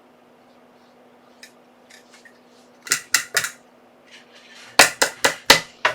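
Sharp clacks of small hand tools being handled and set down on a hard workbench: three in quick succession about three seconds in, then four more a little under two seconds later, with lighter ticks between, over a faint steady hum.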